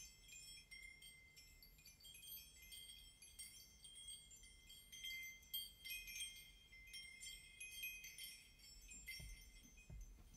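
Faint, high-pitched chime-like tinkling: many short, overlapping ringing notes at the quiet opening of the soundtrack music.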